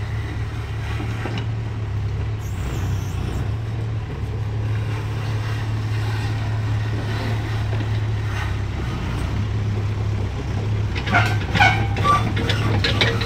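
Kubota mini excavator's diesel engine running steadily as the machine tracks down off a trailer. Near the end there are a few sharp metallic clanks as the rubber tracks come down the steel loading ramps.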